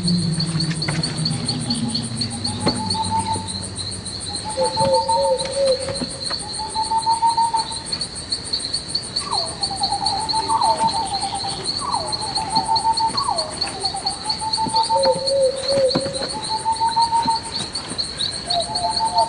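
Night ambience: a steady, high cricket trill throughout, with a bird calling in short, repeated chirping phrases every second or two. A low drone fades out over the first few seconds, and a few soft clicks and rustles sound in between.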